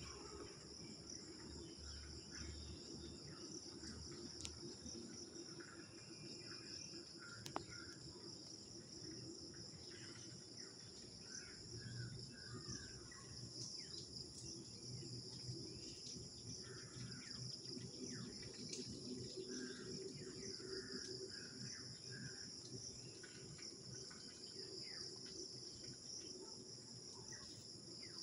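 Steady high-pitched insect chorus, with scattered short bird chirps and one sharp click about seven seconds in.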